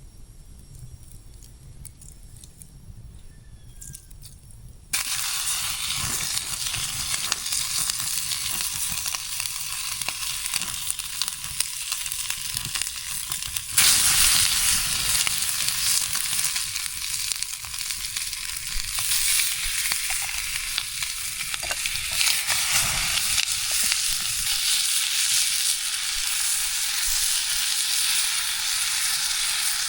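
Chicken drumsticks searing in a hot pan over a campfire, sizzling. The sizzle starts suddenly about five seconds in as the meat goes into the pan, and jumps louder again about fourteen seconds in.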